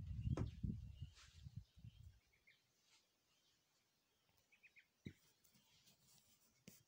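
Low rumble on the microphone for about the first two seconds, then a quiet room with a few faint, short bird chirps and a sharp click about five seconds in.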